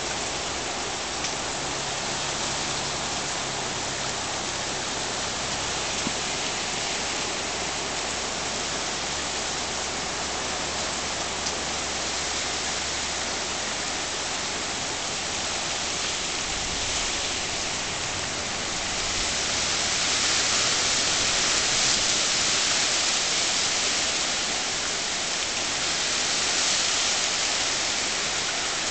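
Torrential rain pouring down, a dense steady hiss that grows heavier about twenty seconds in and again a little later.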